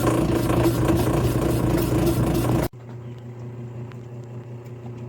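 Portable mini washing machine's motor running with a steady hum. About two and a half seconds in, it cuts off abruptly, leaving a much quieter steady hum with a few faint ticks.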